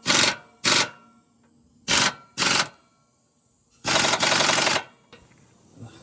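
Air impact wrench hammering on a seized catalytic converter bolt in five short bursts, the last and longest about a second. The bolt is stubborn and has not broken loose by hand.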